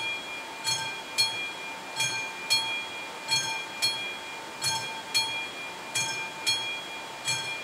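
Classic mechanical bell of an AŽD 71 level-crossing warning signal ringing, with a clear metallic ring after each stroke. It strikes in pairs about half a second apart, a new pair about every 1.3 s. The bell sounds because the crossing is in its warning state for an approaching train.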